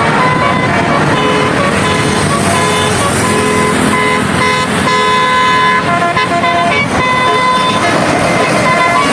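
A bus's telolet horn, a set of musical air horns, playing a quick tune of short notes that keep changing pitch, over steady road-vehicle noise.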